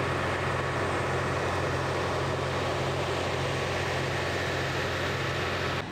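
Steady mechanical drone with a broad hiss and a low, constant hum, like an engine or machinery running without change; it cuts off abruptly near the end.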